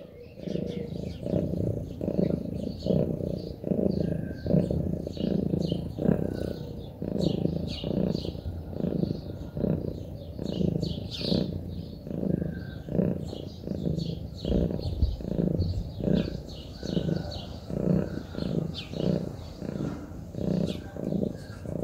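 Munchkin cat purring close to the microphone, a low rhythmic purr that swells and fades with each breath, about one and a half pulses a second.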